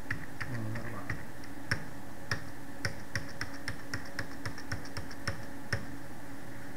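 Computer keyboard being typed on: a run of irregular key clicks, a few a second, that stops near the end, over a steady low hum.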